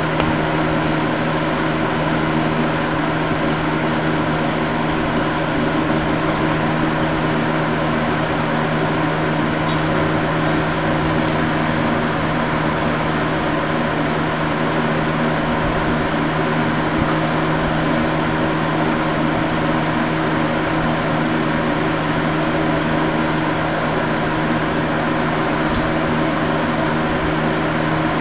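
Aquarium pump running: a steady, unchanging hum with a buzzing low tone over a constant hiss.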